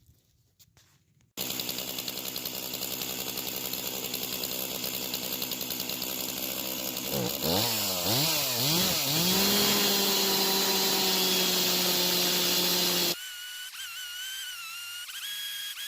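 Stihl 391 chainsaw with a beam-milling attachment running, revved up and down a few times and then held at a steady pitch, as when a cut through an oak log is under way. It cuts off abruptly near the end, leaving a quieter wavering tone.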